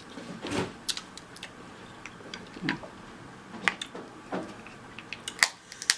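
Dungeness crab shell being cracked and picked apart by hand, close to the microphone: irregular sharp cracks and clicks, with a few softer wet sounds between them.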